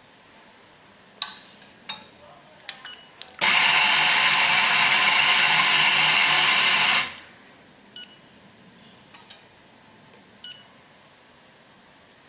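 etzMAX MEDIUM coffee grinder's motor grinding beans for about three and a half seconds, starting and stopping abruptly, with a steady whine. A few clicks and knocks come before it, and a few lighter ones after.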